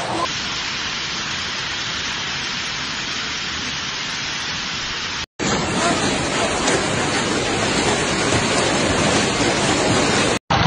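Hailstorm: hail and heavy rain falling in a steady hiss. About halfway through, after a brief break, a louder and fuller din of hailstones pelting hard ground takes over.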